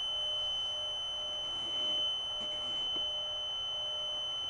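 A steady high-pitched electronic tone that holds one pitch throughout, with a few faint clicks from the controller's panel keys as its parameter list is scrolled.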